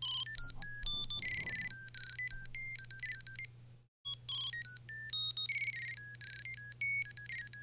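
Invoxia GPS tracker ringing its find-me jingle: a quick, high-pitched electronic melody of stepping beeps, played twice with a short break a little before the halfway point. It is the locate alert, set off from the app to find the tracker.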